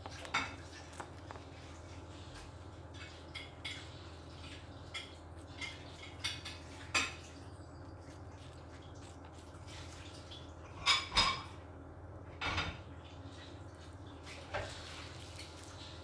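A rabbit eating crisp vegetables such as carrot and cucumber from a dish: irregular short crunches and clicks of chewing and food knocking on the dish, with the loudest pair a little past halfway. A faint steady hum underneath.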